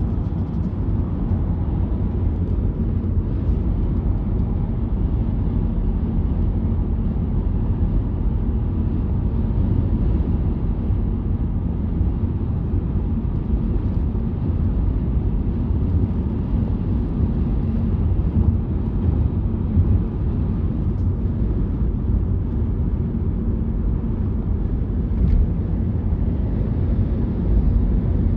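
Mercedes CLA 250+ EQ on the move: a steady low rumble of road and tyre noise, with a faint rattle from the passenger-side sill ticking now and then.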